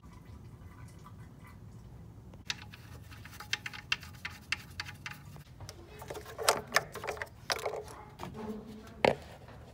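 Scattered light metallic clicks and taps from hands and tools working at a car's oil pan drain plug, with a sharper knock near the end.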